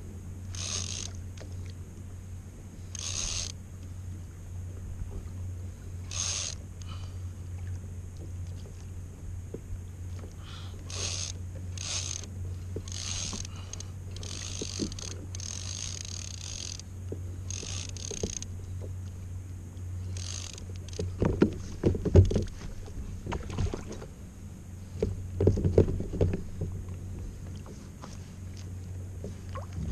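Fishing reel working against a hooked yellowfin tuna: short high-pitched bursts of reel and line noise, repeated every second or two, over a steady low hum. Several louder knocks and thumps come about two-thirds of the way in.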